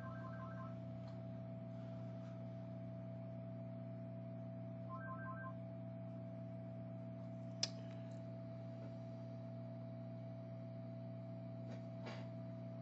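Steady low electrical hum with a fainter steady tone above it. A brief run of rapid faint beeps comes about five seconds in, and a single sharp click near eight seconds.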